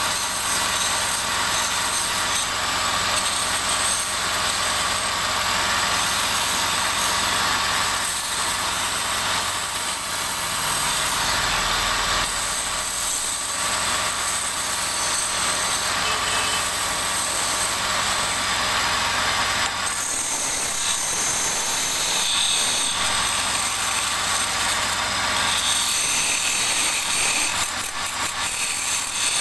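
Wood lathe running while a turning tool cuts into a spinning sofa-leg blank: a steady, unbroken cutting noise over the machine's running sound.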